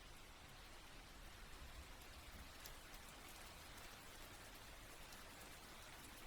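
Soft, steady rain: an even, faint hiss with a few light drop ticks.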